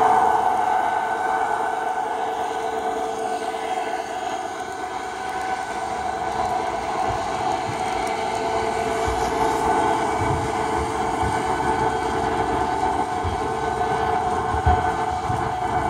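O scale model train running past on its track: a steady running hum of the model diesel locomotives with the rolling of the cars, and a few low knocks late on.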